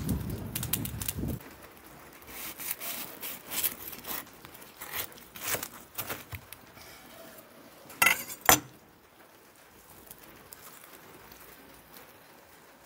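Knife sawing back and forth through a sesame-seed burger bun and its fillings on a wooden cutting board: a run of uneven rasping strokes. Then two sharp knocks about half a second apart, the loudest sounds.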